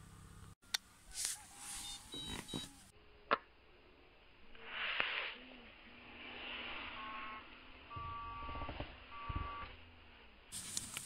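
Electronic carp bite alarms beeping: short, steady, high beeps, a few early on and several longer ones in the second half, as line runs off a rod. A few sharp knocks and some rustling come in between.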